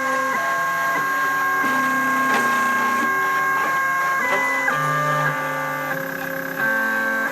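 Bipolar NEMA stepper motors on the X and Y axes of a home-built CNC whining in held tones that jump to new pitches every fraction of a second to a second or so. The pitch follows each axis's step rate as the machine works through the short line segments of a spirograph pen plot.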